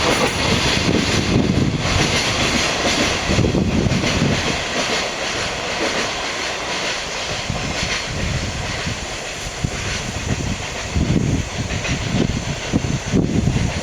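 Freight train passing, a steady rumble of its wagons rolling by on the rails.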